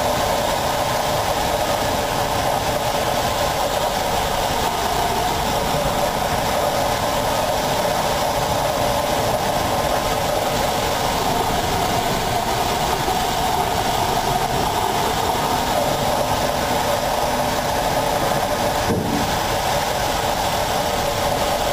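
Steady, unbroken rushing drone aboard a bulk carrier ploughing through storm seas: wind over the ship together with its engine, with no distinct wave impacts standing out.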